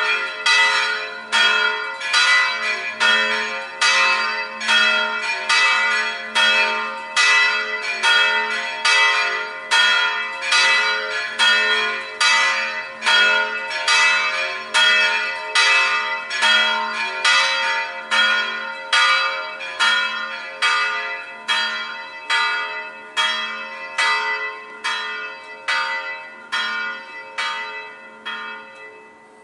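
Church tower bells swinging and ringing in a steady, even rhythm of about two strokes a second, each stroke ringing on into the next. The strokes grow weaker over the last several seconds and die away as the ringing ends.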